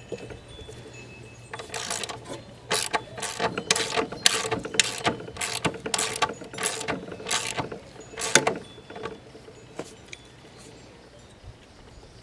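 Ratchet wrench clicking through a run of short strokes, about two a second, stopping about eight and a half seconds in.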